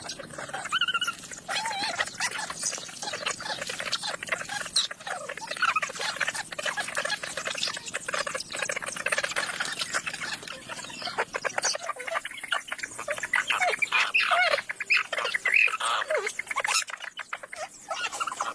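Chickens clucking and squawking in a busy, overlapping chorus of short calls, with many small clicks and taps among them.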